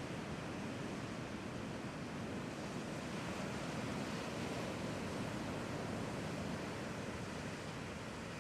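Ocean surf breaking and washing continuously, with strong wind rushing over the microphone.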